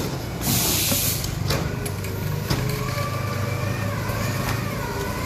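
A vehicle engine running steadily at a low, even pitch, with a brief burst of hiss about half a second in.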